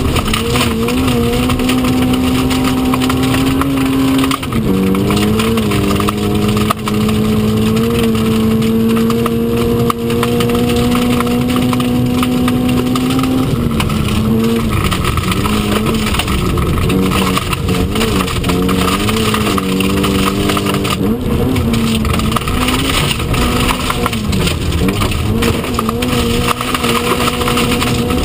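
Historic Mini Cooper S rally car's engine, heard from inside the cabin, running flat out on a gravel stage. It holds a high, steady pitch for long stretches, broken several times by quick drops and recoveries at lifts and gear changes. Steady gravel and tyre noise runs underneath.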